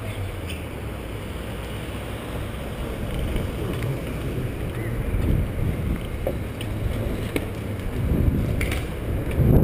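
Wind buffeting the microphone of a moving body-worn camera, a rumbling noise that swells toward the end, over passing street traffic, with a few faint knocks.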